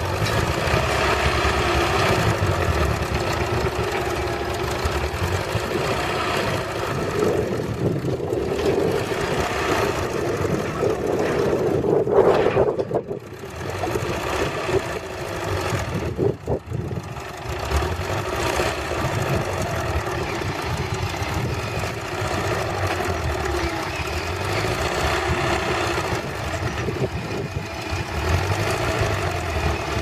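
Diesel engine of a backhoe loader running hard under load as the machine climbs out of a flooded pit, with a short drop in level about thirteen seconds in.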